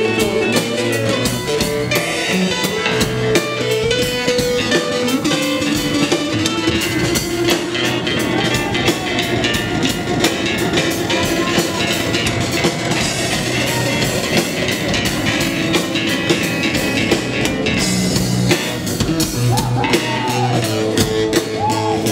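Live piano rock trio playing an instrumental passage: electric keyboard, drum kit and bass guitar.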